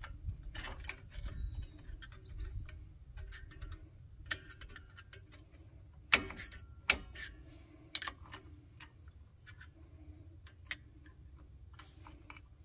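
Irregular metallic clicks and ticks from a Jeep TJ parking brake cable and its adjuster being worked by hand. The sharpest click comes about six seconds in, and there is a low rumble of handling in the first couple of seconds.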